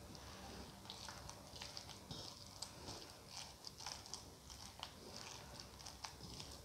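Faint, irregular wet squishing and crackling of a bare hand mashing boiled potato into cooked minced chicken on a plate.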